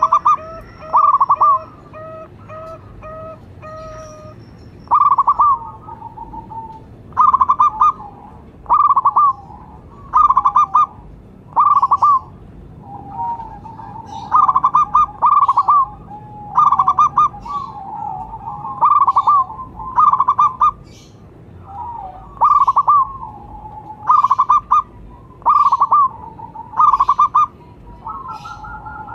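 Zebra doves cooing: a run of short, quick notes for the first few seconds, then loud, repeated coo phrases every second or two.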